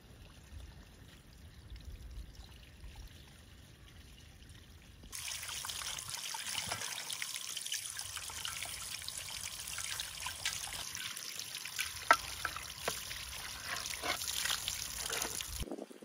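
Water poured and trickling, with small splashes and clicks, starting suddenly about five seconds in and cutting off just before the end.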